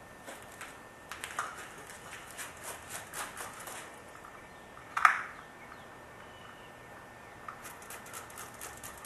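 Small clicks and rubbing sounds from working headlight cleaning formula onto a plastic headlight lens. One louder, sharper sound comes about five seconds in.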